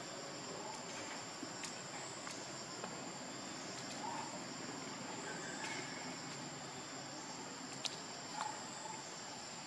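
Steady, high-pitched chorus of insects shrilling without a break, with a few faint sharp clicks and short chirps scattered over it.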